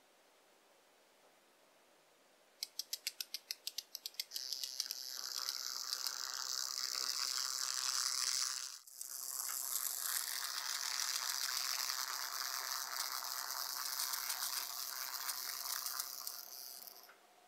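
Micro RC car's tiny 4.1 mm DC drive motor running with a high-pitched buzz as the 1/87-scale model drives. A run of quick ticks comes first, speeding up. The buzz breaks off for a moment about nine seconds in, then runs on until it stops shortly before the end.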